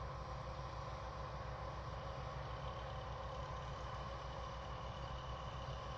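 Diesel engine of farm harvest machinery running steadily, with a low, even throb and a steady whine above it.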